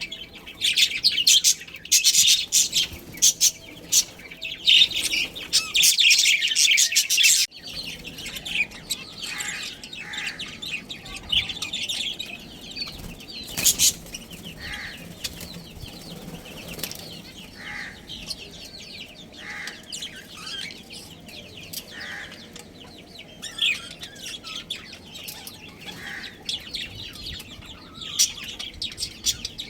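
Budgies chattering, a dense rapid flurry of high chirps that breaks off abruptly about seven seconds in, followed by sparser, spaced-out short chirps.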